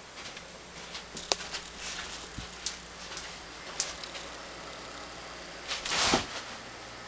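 Handling noise from a handheld camera carried down a carpeted hallway: scattered light clicks and knocks, then a short rustling burst about six seconds in, the loudest sound.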